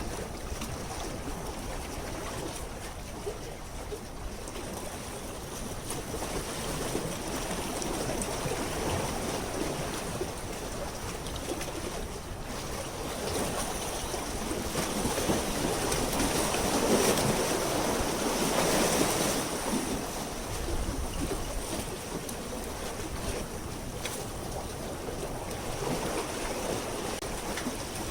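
Seawater washing and lapping at the fish port, with wind buffeting the microphone. The noise swells for a few seconds around the middle.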